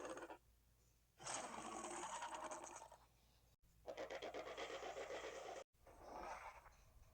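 Therizinosaurus creature sound effects: three separate raspy, rattling hiss-growls, each about two seconds long, with a rapid fluttering texture and short pauses between them.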